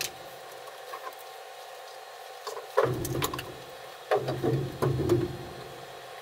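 Knocks and thumps of lumber being handled against the bare wooden wall framing of a gutted travel trailer, in two short clusters about three and four seconds in.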